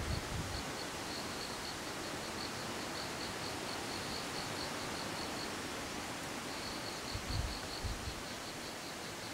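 Forest ambience: an insect calling in a steady train of high, rapid pulses, about four a second, that breaks off for about a second in the middle and then resumes, over a steady hiss. Two brief low thumps come about three-quarters of the way through.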